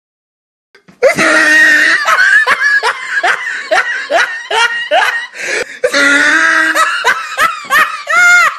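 Loud laughter, a fast run of short rising ha-ha bursts, starting about a second in after a moment of silence.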